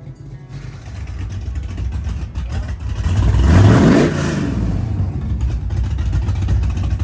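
Cammed LS V8 engine swapped into a G-body Monte Carlo SS, running. It is revved once about three seconds in, rising and then dropping back to idle.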